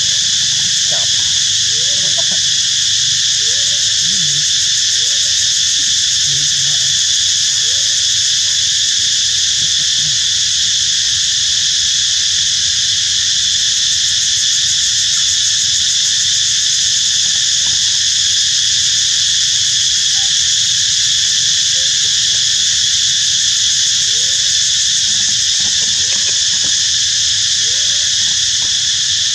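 Steady, loud insect chorus droning in several high pitches without a break, with faint short rising animal calls scattered through it.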